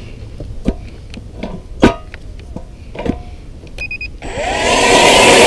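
Clicks and knocks as a StrikeMaster battery-powered electric ice auger is handled, a short beep near four seconds in, then the auger's motor starts with a rising whine and runs loud and steady, boring into the ice.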